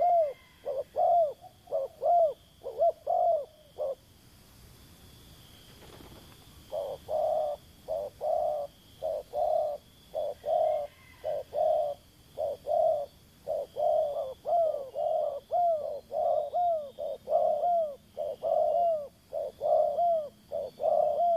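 Dove cooing: a long run of short, arching coos, two to three a second. The run breaks off for a few seconds about four seconds in, then resumes more densely.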